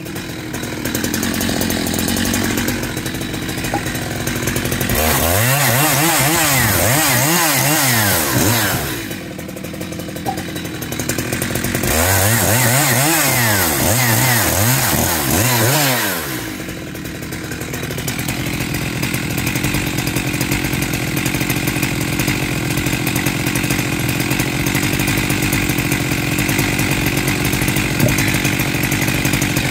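Husqvarna 372XP big-bore two-stroke chainsaw, fitted with a 272XP pop-up piston, making two cuts through firewood logs about five and twelve seconds in. Its pitch dips and recovers under load during each cut. It then runs steadily for the second half.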